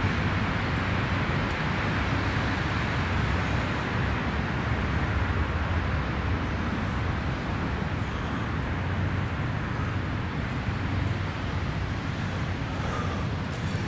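Steady rumble and hiss of road traffic, even throughout with no distinct events.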